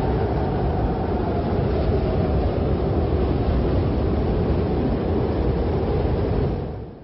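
Strong wind blowing in a steady low rumble with a faint howl, fading out near the end.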